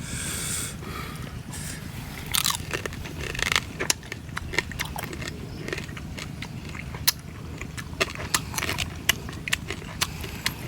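A man biting and chewing raw field crabs, crunching through the shells in sharp, irregular cracks that start about two seconds in.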